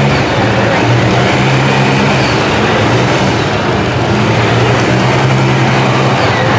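Lifted Chevrolet mud truck on tall tractor-tread tires running wide open through a mud pit: a loud, steady engine drone over the rush of tires churning and slinging mud.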